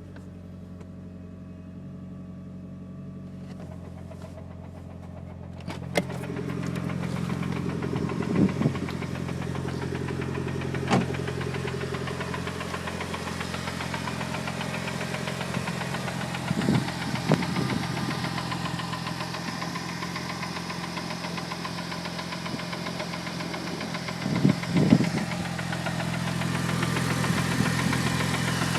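Mitsubishi Lancer Evolution VIII's turbocharged four-cylinder engine idling with a knocking noise, which the seller says is the clutch release bearing. It gets louder about six seconds in, with a few sharp clicks and short louder bursts.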